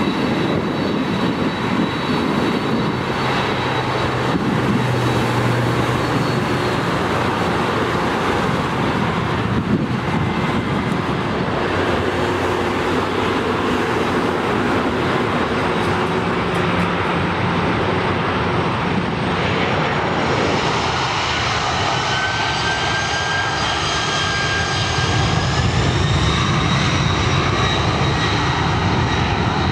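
Jet engines of a taxiing Boeing 747-400 airliner running with a steady rush. From about two-thirds of the way through, a high turbine whine rises in pitch, and the sound grows a little louder near the end.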